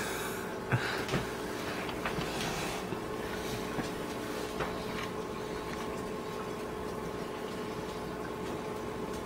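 Steady hum of reef-aquarium equipment with a couple of fixed tones in it. About a second in come two sharp knocks and a few small water sounds as a hand works among the rock in the tank.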